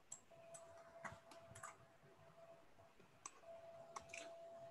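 Near silence with a few faint, scattered computer keyboard and mouse clicks and a faint steady tone in the background.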